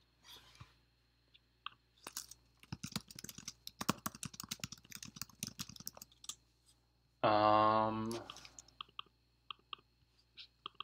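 Rapid typing on a computer keyboard for about four seconds, then a short low hummed 'hmm' from a man's voice, followed by a few scattered single clicks.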